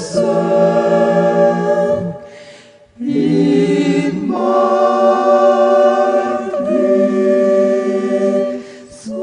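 A cappella vocal group singing in close harmony with long held chords. The first chord is held for about two seconds, then after a short break a longer chord changes twice and fades away near the end.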